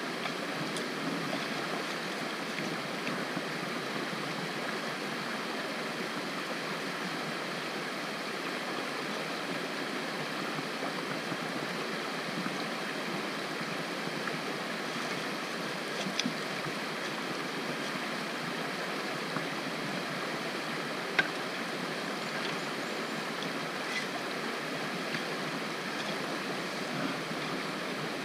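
Creek water rushing steadily over a rocky bed. A few short, sharp clicks come through it, the loudest about three quarters of the way through.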